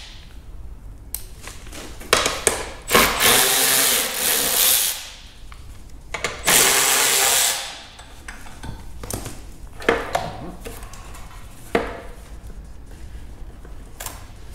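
Power drill spinning a 10 mm socket to back out the mini bike's headlight mounting bolts, in two runs of a couple of seconds each. A few sharp clicks of tools and parts being handled follow.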